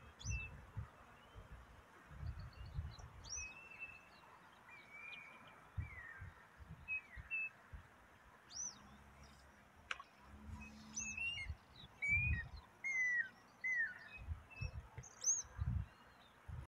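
Birds calling from the surroundings: many short chirps and whistled notes, some rising, some falling, more frequent in the second half, over intermittent low rumbles.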